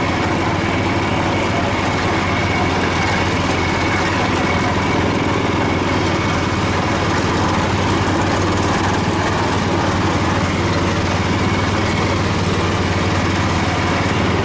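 Riding garden tractor's small engine running steadily while under way, with a steady high whine over the engine note.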